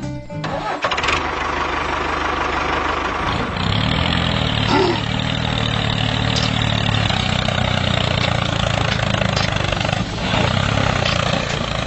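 Tractor engine sound starting up and then running steadily, growing a little louder about four seconds in.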